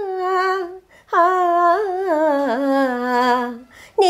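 A woman sings unaccompanied, holding long wordless notes. One note ends about a second in. After a short breath comes a longer note that wavers with ornaments and slides down in pitch, and a new phrase begins near the end.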